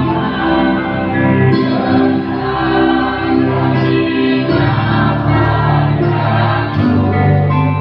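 Mixed church choir of men and women singing in harmony, accompanied by an electric bass guitar playing low held notes.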